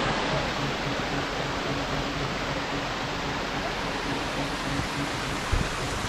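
Steady rush of running water from a small waterfall, with a soft knock near the end.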